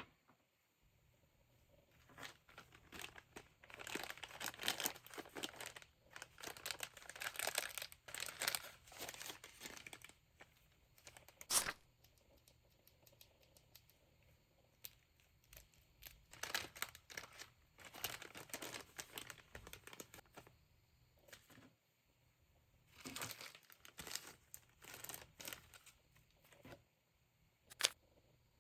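Packaging crinkling and tearing as wrapping is pulled off, in several bursts of a few seconds each with pauses between. There are two sharp clicks, one about halfway through and one near the end.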